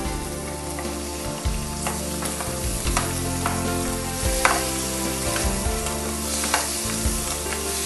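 Raw prawns sizzling as they shallow-fry in oil in a nonstick kadai, stirred with a plastic spatula that clacks against the pan every second or so.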